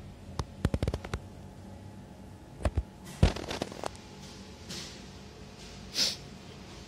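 Sharp clicks and knocks of plastic objects being handled on a tabletop. A quick run of about six clicks comes near the start, then a pair, then a louder knock just after the middle followed by a few lighter clicks. A short scrape near the end comes as a plastic bottle is picked up.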